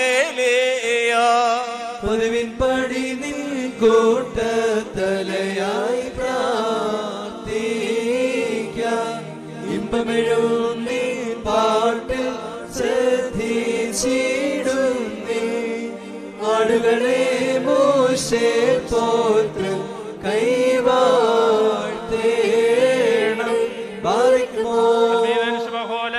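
Liturgical chanting of the Syriac Orthodox Qurbana: voices sing a slow, unbroken melodic chant that rises and falls.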